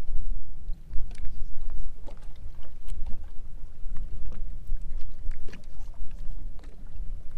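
Wind rumbling on the microphone and water slapping against the hull of a bass boat, with scattered light clicks and taps.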